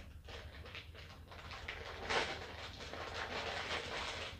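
Clear plastic wrapper around a plastic syringe crinkling and rustling as it is handled, in soft irregular rustles with a slightly louder one about two seconds in.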